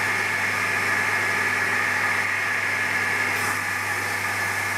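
Steady mechanical drone with a constant low hum, from a machine such as a fan or motor running without change.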